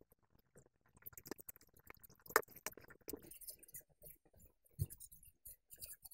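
Dry cut paper strips rustling and crackling as they are handled, with scattered small clicks and taps. A sharper tap comes a little over two seconds in, and a dull knock near five seconds.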